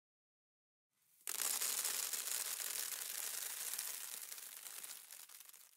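Logo intro sound effect: a dense, rapid clicking rattle that starts suddenly about a second in and fades away over about four seconds.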